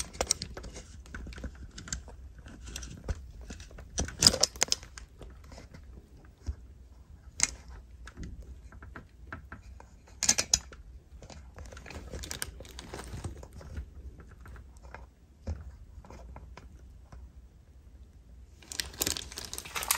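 Rustling and crinkling of plastic-wrapped medical supplies and cardboard being handled in a supply box, with scattered light clicks and a few sharper knocks.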